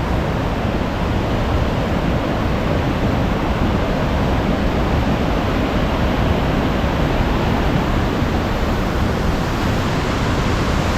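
Waterfall rushing, a loud, steady, unbroken roar of falling water.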